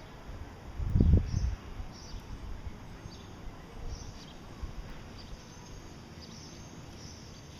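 Gouldian finches giving short, high chirps at irregular intervals, with one dull low thump about a second in.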